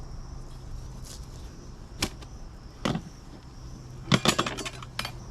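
Knife knocking and tapping on a cutting board while a fish is filleted: single sharp knocks about two and three seconds in, then a quick run of clicks and taps near the end.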